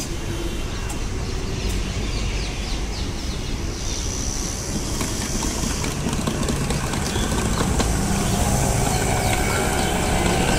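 Steady street background noise: a low, even rumble of traffic with a light hiss over it.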